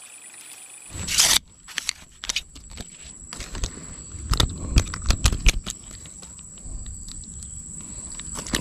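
Irregular knocks, scrapes and rustling, with a loud scrape about a second in, over a faint steady high whine.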